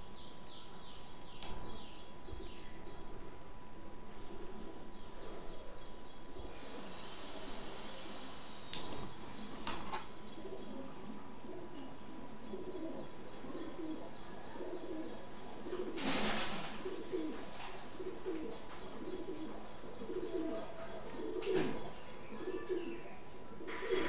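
Birds: a small bird chirping in quick runs of high notes, and from about halfway a dove cooing in repeated low notes. A faint steady high whine runs underneath, with a couple of brief rustles.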